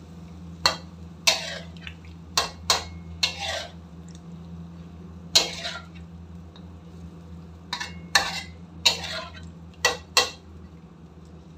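A metal spatula scraping and knocking against a metal karahi while stirring chicken pieces in sauce: about a dozen sharp clanks and scrapes at irregular intervals, over a steady low hum.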